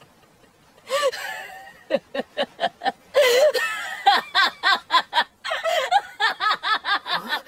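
An anime character's voice laughing, a long run of quick 'ha's at about four a second, after a short voiced sound about a second in.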